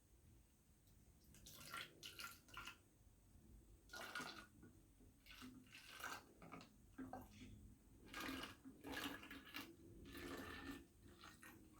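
Vinegar being poured into a bottle: faint, uneven pouring and splashing of liquid in short spurts.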